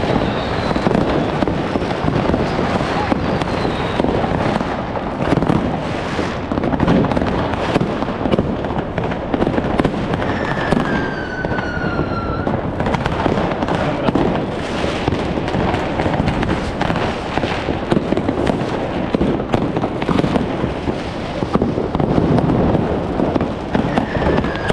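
Fireworks and firecrackers going off all around in a dense, continuous crackle of bangs and pops. About ten seconds in, a whistle glides down in pitch.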